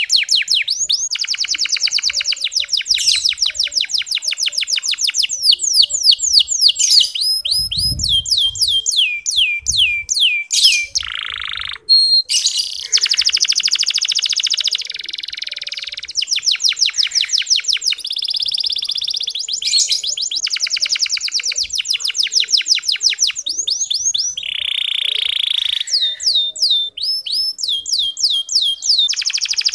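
Domestic canary singing a long 'ngeriwik' song: fast rolling trills of rapidly repeated down-sweeping whistled notes, shifting from one trill to the next with brief pauses and a short buzzy passage near the end.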